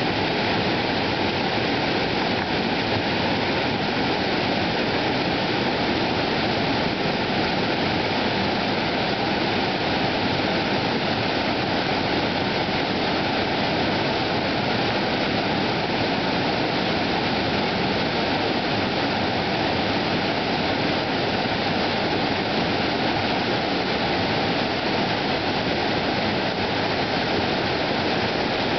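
Waterfall rushing: a steady, loud wash of falling water with no change throughout.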